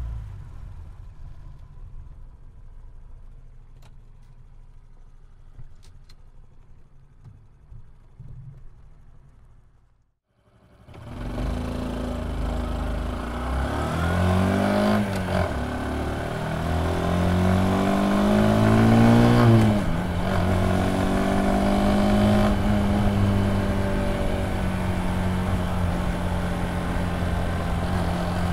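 Honda Super Cub C125's air-cooled single-cylinder engine on the move. For the first ten seconds it is a dull, quieter rumble. After a short break the exhaust note comes in loud and clear with no wind noise, recorded from inside the leg shield. It rises and drops twice as the bike shifts up, then holds steady at cruise.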